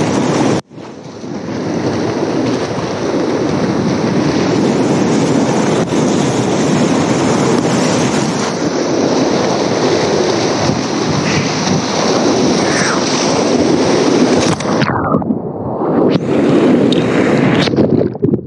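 Class III whitewater rapid rushing loudly around a kayak, heard with wind and water noise on a boat-mounted camera's microphone. About fifteen seconds in, the sound turns muffled and sloshing as water washes over the camera.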